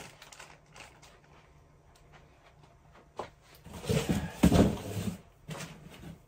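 Knocks and thuds with rustling from cardboard parcels being moved about. A single click comes about three seconds in, then a cluster of louder knocks about four to five seconds in.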